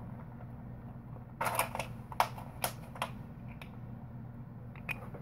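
Small clicks and scrapes of hands handling a silver bullion coin and its plastic capsule, in a cluster about a second and a half in and twice more near the end, over a low steady hum.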